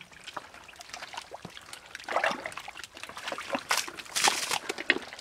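Hands splashing and squelching through shallow muddy water and mud while groping for fish, in irregular bursts of sloshing and dribbling, louder about two seconds in and again from past the middle to near the end.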